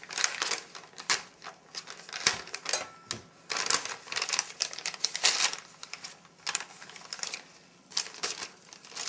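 Thin plastic MRE flameless-ration-heater sleeve and foil retort pouches crinkling and rustling in an irregular run of crackles as the hot pouches are worked out of the sleeve.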